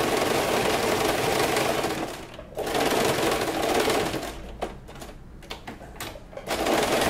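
Electric domestic sewing machine stitching in bursts: it runs for about two seconds, stops briefly, runs again, then goes quieter with a few clicks before starting up again near the end.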